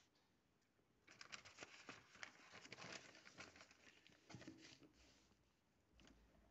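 Sheets of printed paper rustling and crackling faintly as a page is turned and pressed flat by hand, for about four seconds starting a second in.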